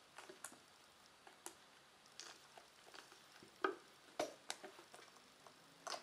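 Young cat scrabbling at a sisal scratching post while play-wrestling with it: irregular scratches, clicks and soft knocks of claws and paws on the sisal, the carpeted base and the wooden decking, with the sharpest knocks a little past halfway.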